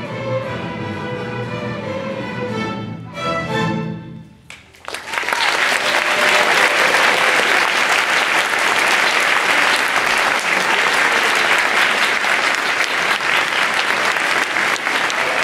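A student string orchestra plays its closing chords, the last one dying away about four and a half seconds in. The audience then breaks into applause, louder than the music.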